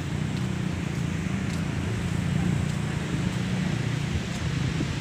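Steady low rumble of a car's road and engine noise heard inside the cabin while driving.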